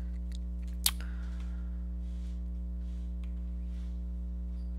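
Steady low electrical hum in the recording, with a single sharp computer mouse click about a second in.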